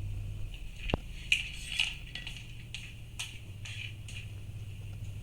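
Tableware clinking: several short, light clinks spread out over a few seconds, over a steady low hum.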